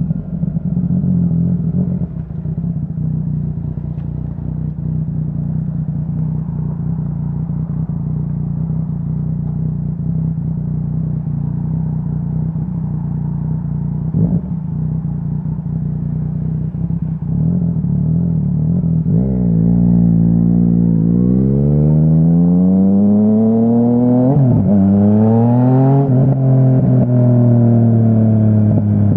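2017 Yamaha Tracer 900's inline three-cylinder engine through a Dominator HP3 full-system exhaust, running at steady revs, then accelerating hard about two-thirds of the way in. The pitch climbs, dips briefly at a gear change, and climbs again before settling.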